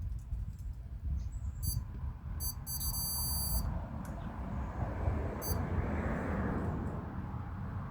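High-pitched electronic beeping from a digital torque readout as a lug nut is tightened past its 63 foot-pound setting: a short beep, two quick ones, a longer beep about three seconds in, and another short beep later, over a low steady noise.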